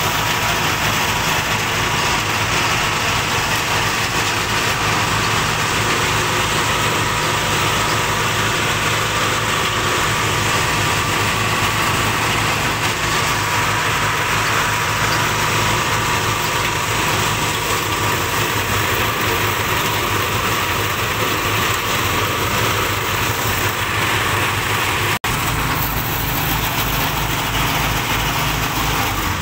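Small engine of a portable rice threshing machine running steadily with a fast, even low throb.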